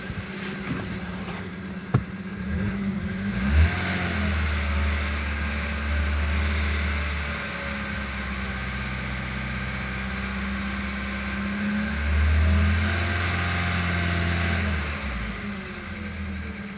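Hyundai/Kia G4FG 1.6-litre four-cylinder petrol engine running at idle and revved up twice, held for a few seconds each time, carrying an extraneous noise that the owner is demonstrating. A sharp click comes about two seconds in.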